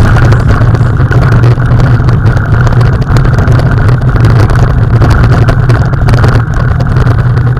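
Vehicle engine running steadily as it drives over a rough gravel track, heard loud from on board, with the noise of the ride over stones.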